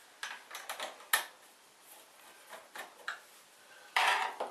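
Clicks and knocks of hands working the parts inside an inkjet printer's print carriage, the sharpest about a second in, then a louder rattle near the end as a screwdriver is picked up from among the tools.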